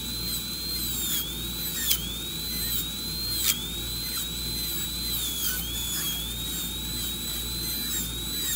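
High-speed dental air-turbine handpiece whining with a steady high pitch. The pitch dips briefly again and again as the burr is pressed into the tooth in short, intermittent strokes to cut the cavity. Two sharp clicks come about two and three and a half seconds in.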